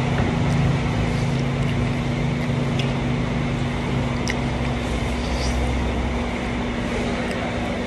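Steady background rush with a constant low mechanical hum, which drops lower and fades about two thirds of the way through, and a few faint clicks.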